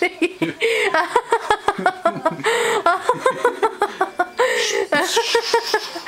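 High-pitched laughter in quick, repeated bursts, with breathier stretches partway through and near the end.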